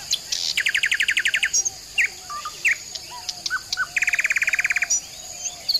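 Birds chirping, with two fast, even trills of about twenty notes a second, one about half a second in and one about four seconds in, and short scattered chirps between them, over a steady high hiss.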